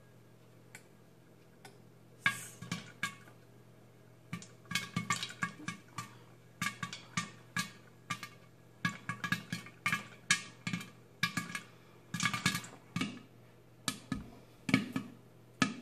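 Popcorn kernels popping in oil and sugar in an Instant Pot's stainless steel pot under a glass lid: a few scattered pops in the first two seconds, then quick irregular pops several a second, the batch in full popping. A faint steady low hum runs underneath.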